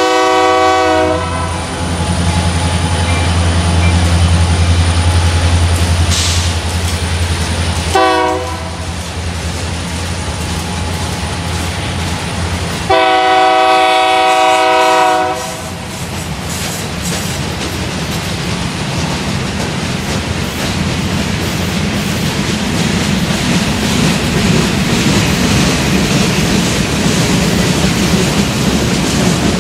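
Freight train passing: the horn of its EMD SD70M diesel locomotives sounds a long blast ending about a second in, a short one about eight seconds in and another long one around the middle, over the low drone of the diesels. The freight cars roll by with steady clickety-clack of wheels on rail.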